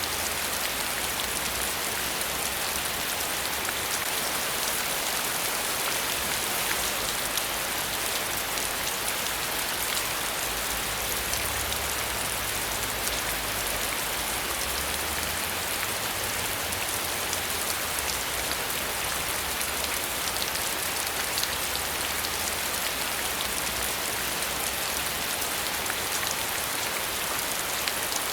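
Steady rain falling, with a dense patter of drops on a surface and a faint low rumble underneath.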